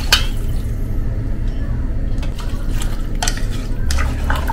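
Water poured from a steel vessel into a pressure cooker of rice and vegetables, starting with a knock of the vessel on the rim. This is followed by a wooden spatula stirring and knocking against the pot several times.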